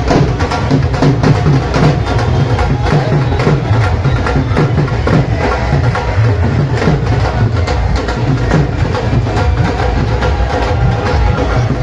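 Music with a steady, driving drum and percussion beat.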